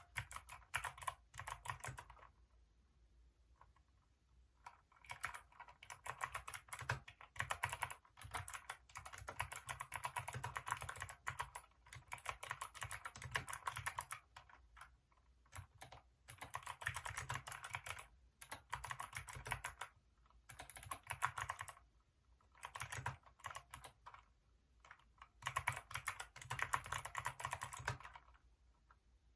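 Hacker K611 keyboard with Kailh optical switches being typed on: fast runs of keystrokes broken by short pauses every few seconds.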